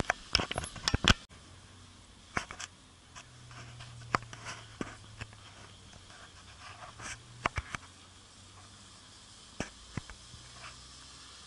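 Scattered sharp clicks and knocks over a faint, steady low engine hum of a car rolling slowly. The clicks come thickest in the first second and stop abruptly.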